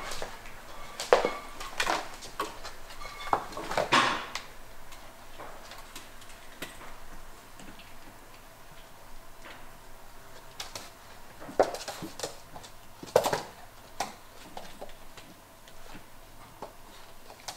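Belgian Malinois puppies, about five and a half weeks old, playing on a laminate floor: irregular light clicks and taps of claws and paws, with a few sharper knocks against wooden furniture, the loudest about a second in, at about four seconds and twice near twelve to thirteen seconds.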